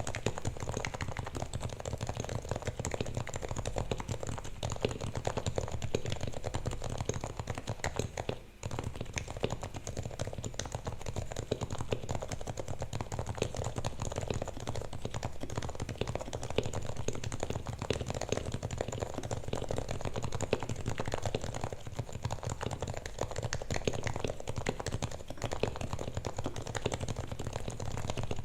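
Happy Hacking Keyboard Hybrid Type-S with Topre capacitive switches, fully lubed and foam-dampened, being typed on continuously in a dense run of keystrokes, with a brief pause about eight and a half seconds in.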